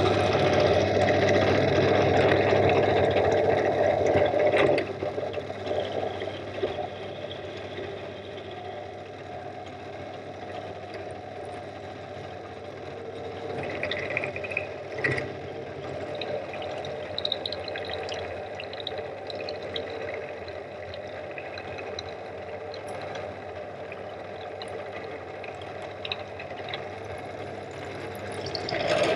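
Pillar drill running with an end mill cutting a Woodruff key slot into a metal shaft held in a cross-slide vise. The cut is loudest for about the first five seconds, then the machine runs on more quietly and steadily with a low hum and occasional light ticks, growing louder again near the end.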